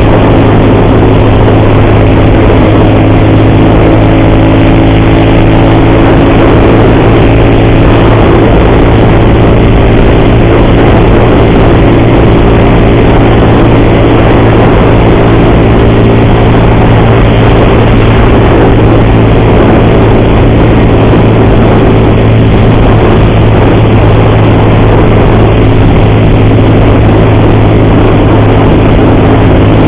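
Motorcycle engine running steadily at cruising speed, loud and close, over a heavy rush of wind and road noise. The rider blames a loud timing-chain noise on this engine.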